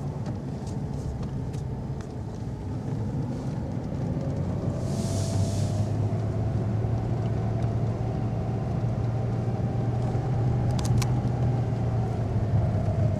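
Cabin noise of a light truck driving down a mountain road: a steady low engine and road hum, with a faint whine that slowly rises and falls. There is a brief hiss about five seconds in.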